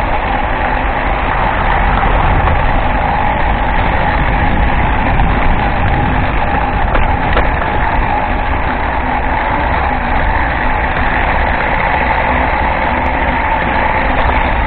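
A large vehicle's engine running steadily with a constant low rumble, heard from close by, likely aboard the bus.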